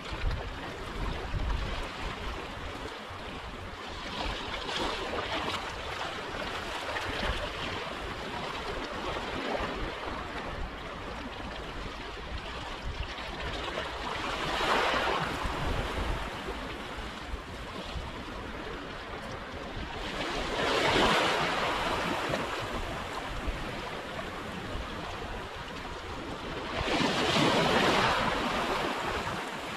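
Sea waves washing and breaking on a rocky shore: a steady rush of water that swells louder three or four times as bigger waves break, the last two the loudest. A little wind rumbles on the microphone.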